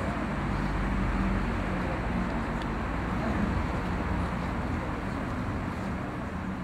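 Steady outdoor background noise: a low rumble and hiss with a faint steady hum underneath, no clear speech.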